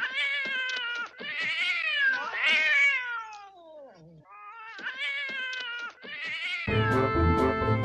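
A cat meowing: about five drawn-out meows, with one long call falling in pitch around the middle. Organ music comes back in near the end.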